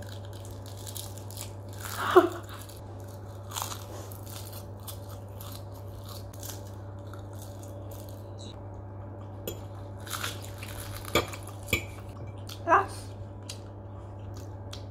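Close-up crunching and chewing of a dried seaweed sheet, a stream of short crisp crackles over a steady low room hum. A few brief vocal sounds break in, the loudest about two seconds in.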